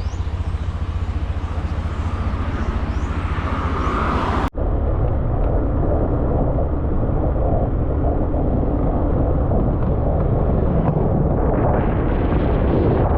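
Motorbike engine running while riding along the road, with rushing road and wind noise. The sound drops out for a moment about four and a half seconds in, then carries on.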